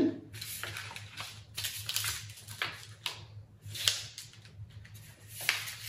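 Folded paper and gold foil crinkling and rustling as a pleated paper fan section is picked up and handled, in irregular bursts with a few sharper taps.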